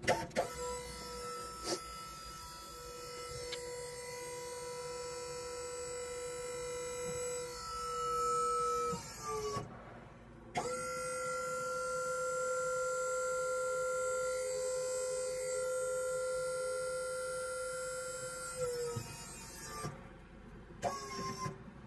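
Electric pump of a SAR Hydraulik motorhome levelling-jack system running with a steady whine as the hydraulic jacks extend and lift the vehicle, sped up to double speed. The whine dips in pitch and stops about nine seconds in, starts again a second later, and dips and stops again near the end.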